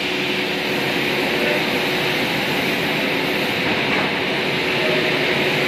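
A CNC router's machinery running steadily: a constant hum with one steady tone under an even hiss.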